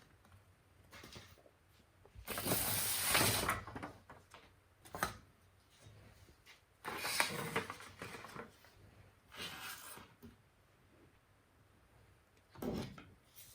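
Hands handling box packaging and small accessories: several separate bursts of rustling and scraping, the longest and loudest about two seconds in, with a sharp click about five seconds in.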